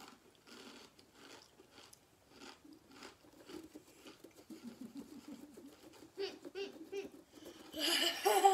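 Takis rolled tortilla chips being chewed, a run of crisp crunches about two a second, with short muffled hums in the second half and a loud breathy outburst near the end.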